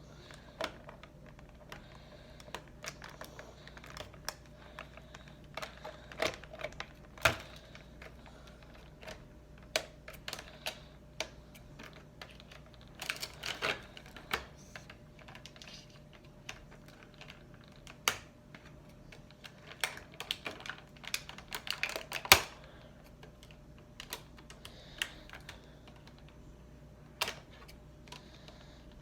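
Irregular clicks, taps and crackles of plastic action-figure packaging being handled as the figure is worked free of its tray, some coming in quick clusters.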